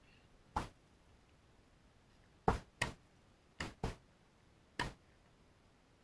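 Tennis ball being struck by rackets and bouncing on a hard court during a rally: six sharp pops at irregular intervals, two of them in quick pairs. The nearer player's racket is a Wilson Clash Pro 100.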